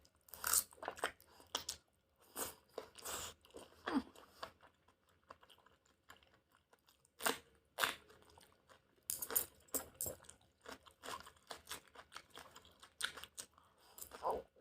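Close-up eating of chicken udon with enoki and button mushrooms: wet chewing and mouth sounds in irregular bursts, with short pauses between mouthfuls.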